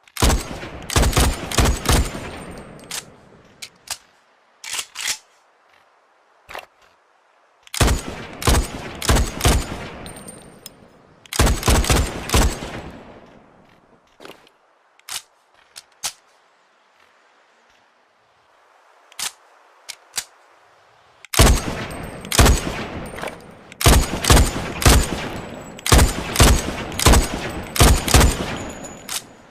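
SVD Dragunov semi-automatic sniper rifle (7.62×54mmR) firing in quick volleys of several shots, each report with a fading reverberant tail. Single lighter sharp clicks come between the volleys.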